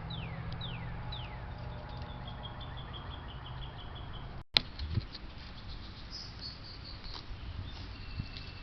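A single sharp crack of a .177 Beeman Kodiak air rifle firing, about halfway through, followed by a softer knock. Birds call through it with falling whistles and a trill.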